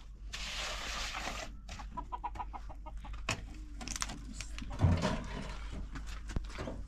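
Chickens clucking, with a rushing noise during the first second and a half and a few scattered knocks, the loudest a thud about five seconds in.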